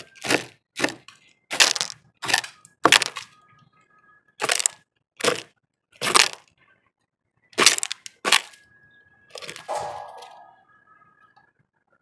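Large bird hammering at seed on a bird feeder with its bill: about eleven sharp, loud knocks at uneven intervals, the last a longer, scrapier one near the end.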